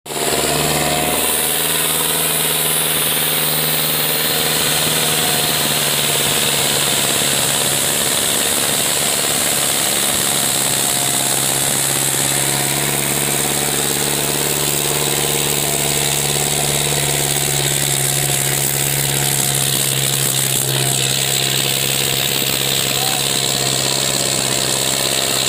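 Tractor diesel engine running steadily and hard under heavy load as it drags a disc harrow through deep sand, its rear tyres digging in.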